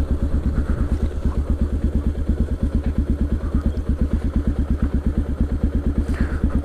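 CCM DS 644's big single-cylinder engine thumping steadily at low revs through its exhaust, in an even beat of about ten pulses a second.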